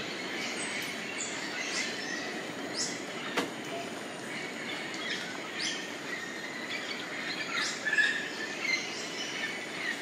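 Tropical rainforest ambience: a steady background drone with many short, sharp bird calls sweeping downward in pitch, and a single sharp click about three and a half seconds in.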